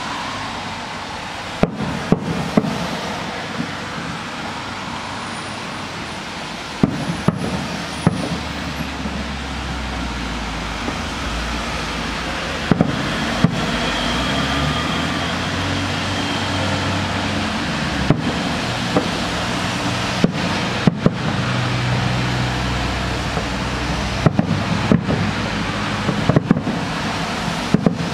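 Distant aerial fireworks shells bursting: many sharp bangs at irregular intervals, sometimes two or three in quick succession, over steady background noise.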